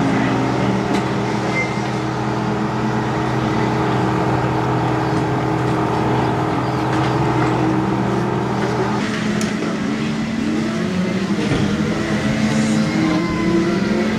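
Go-kart engines running: a steady drone for the first nine seconds or so, then engines rising and falling in pitch as they change speed.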